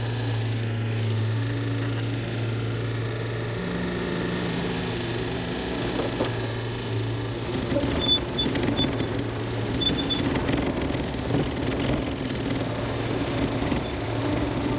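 Excavator's diesel engine running steadily, with rougher, irregular working noise and a few short knocks from about six seconds in.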